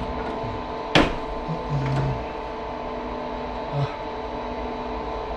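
Plastic cover of a split-type air conditioner's indoor unit being handled, with one sharp click about a second in as the panel is worked open to reach the filter. A steady hum runs underneath.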